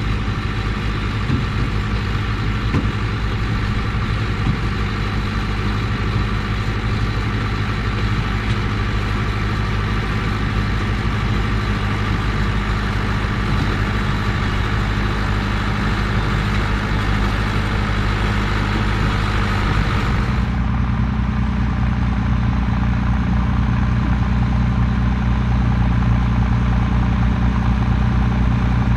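Vintage farm tractor engine running steadily under way. About two-thirds of the way in the sound changes abruptly to a deeper, heavier engine note, with less of the higher clatter.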